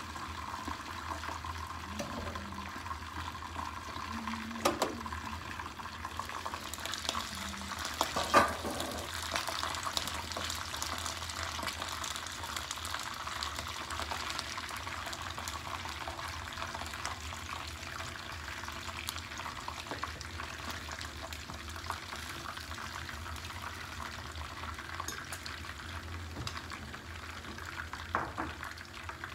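Fish frying in hot oil in a pan, a steady sizzle that grows louder about seven seconds in, as the lid comes off. A few sharp knocks of lid and metal spatula against the pan, the loudest about eight seconds in.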